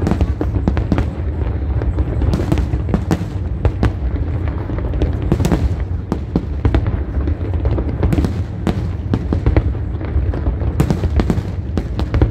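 Aerial fireworks display: a dense, continuous run of booming shell bursts and crackles, over a steady low rumble.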